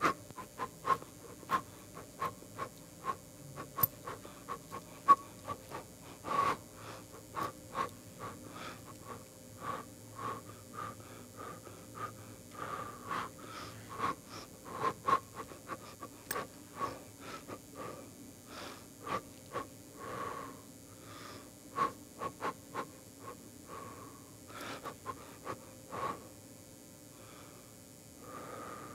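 A person's short, sharp breaths or sniffs, irregular, a few each second, over a faint steady hum.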